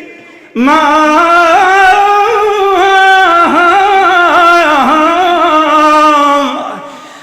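A man's voice singing one long wordless melismatic phrase in the style of a Shia eulogy recitation, the pitch bending and wavering, unaccompanied; it comes in about half a second in and fades out near the end.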